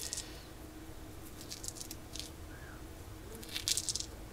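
Dried rosemary crackling as it is rubbed and crushed between fingers and palm, in short crunchy bursts, loudest near the end.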